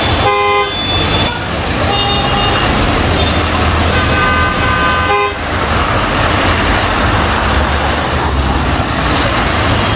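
Street traffic noise with car horns honking several times, the longest blast lasting about a second, around four to five seconds in.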